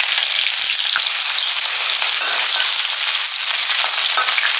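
Chopped onion frying in hot mustard oil in an iron kadai: a loud, steady sizzle with scattered crackling pops.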